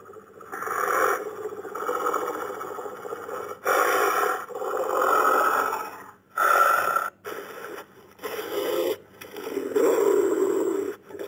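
Dire wolf creature sound effect: about ten rough, noisy vocal bursts in quick succession, each up to a second or so long with short gaps between.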